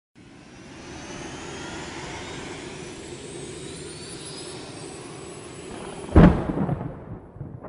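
Cinematic whoosh effect: a steady rushing, jet-like noise with faint rising whistling glides that builds gradually, then a heavy boom-like impact hit about six seconds in that rings away.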